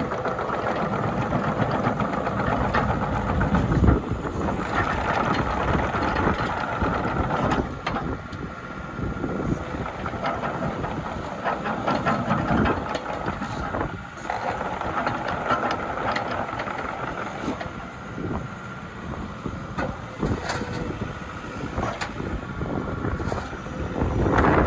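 JCB 8085 ZTS excavator's diesel engine running steadily, with a thin steady whine over it through much of the time and a few scattered clicks.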